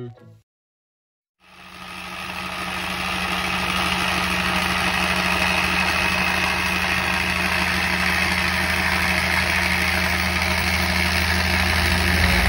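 3D-printed vibratory bowl feeder running: a steady low electromagnetic hum under a dense, even rattle of steel screws and washers jittering in the plastic bowl. It starts about a second and a half in and builds over the next couple of seconds.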